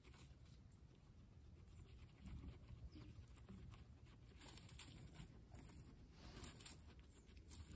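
Faint crunching and nibbling of guinea pigs chewing carrot pieces, as scattered small clicks and crackles with a few louder crunches around the middle and about two-thirds of the way through.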